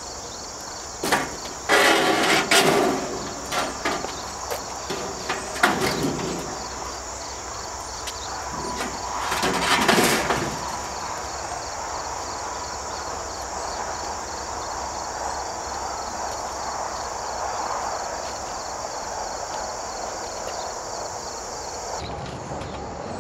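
Galvanized sheet-metal panels of a roll-out chicken nest box clattering and scraping as the top panel is set onto the box and pushed into place, with three loud bursts of rattling in the first ten seconds. A steady chorus of crickets runs underneath.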